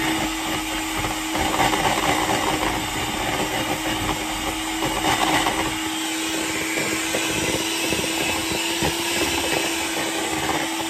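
Electric hand whisk running loud and steady, its beaters mixing sponge cake batter in a bowl, with a constant motor hum.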